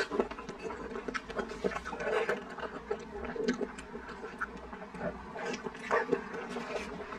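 Wet mouth sounds of eating a soft, jelly-like block coated in chili sauce: sucking and slurping at it between the lips, with many short smacking clicks and squelches as it is chewed.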